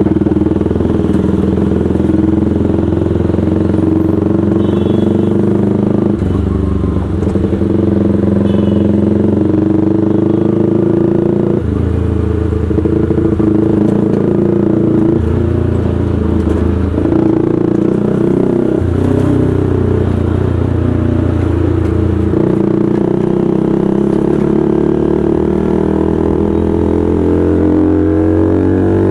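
Bajaj Pulsar NS200's single-cylinder engine running through a loud aftermarket SC Project-style exhaust while being ridden. Its pitch steps up and down with throttle and gear changes, then climbs steadily near the end as the rider accelerates.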